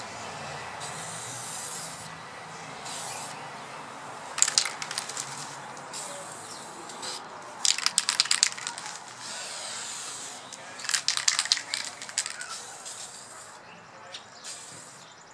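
Aerosol spray-paint can hissing in short bursts as a light first coat is dusted onto a rifle. Three spells of loud, quick rattling clicks come in between, about four, eight and eleven seconds in.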